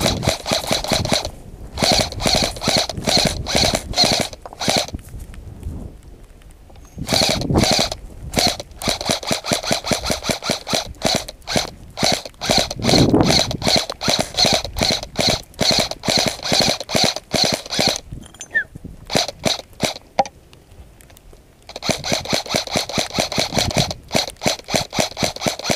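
Airsoft rifle firing on full auto in long rapid-fire bursts, with a few short pauses between them.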